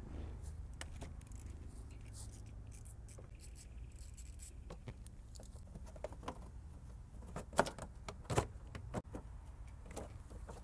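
Small hand ratchet and socket making light metallic clicks and clinks while a 10 mm bolt is undone on top of an alternator, with two louder clinks about seven and a half and eight and a half seconds in.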